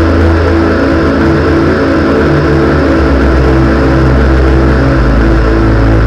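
Live electronic music from synthesizers: a dense, sustained drone of layered tones over a deep bass note that steps to a new pitch every second or two, with no drum beat.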